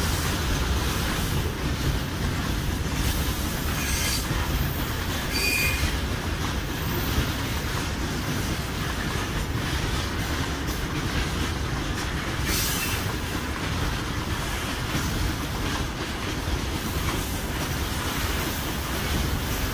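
Freight train of railway tank cars rolling past: steady noise of steel wheels on the rails, with a few short high wheel squeals about 4, 5.5 and 12.5 seconds in.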